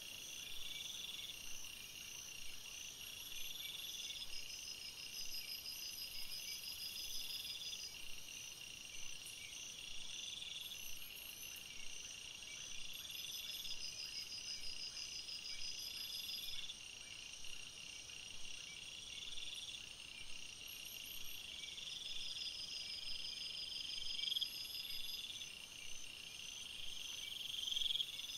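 Crickets chirping in a steady night chorus: a continuous high trill, with a rhythmic chirp repeating about every two seconds.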